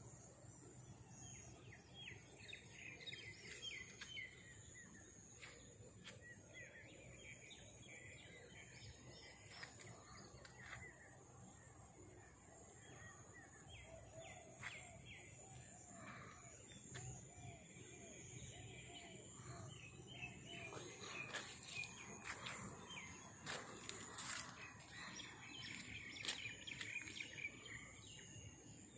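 Faint outdoor ambience with birds chirping: scattered chirps, a run of short repeated calls in the middle, and more chirping towards the end over a steady high hiss.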